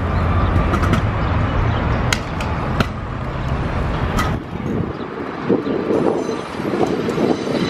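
Stunt scooter wheels rolling over concrete with a low rumble, broken by a few sharp clacks of the scooter landing and hitting the ground. The rumble gives way to a rougher scuffing noise later on.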